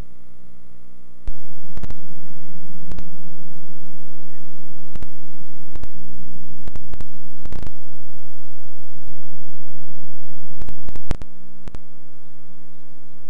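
Steady electrical mains hum with many overtones, broken by scattered sharp clicks of static. It gets louder about a second in and drops back about two seconds before the end.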